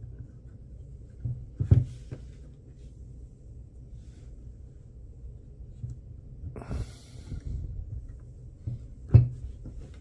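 Hands handling a plastic PC cooling fan on a desk: a few light clicks and knocks, the loudest near the end, and a short scratchy rustle about seven seconds in as the sticker is peeled off the fan's hub.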